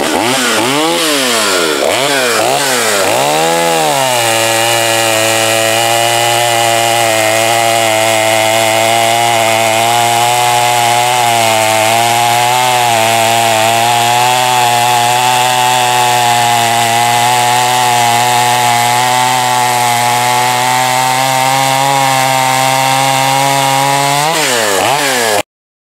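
Stihl 021, a 35 cc two-stroke chainsaw, revved up and down about four times, then held at full throttle under load as it cuts through a log for about twenty seconds, its pitch dipping slightly as it bites. It revs free briefly as it finishes, and the sound cuts off suddenly near the end.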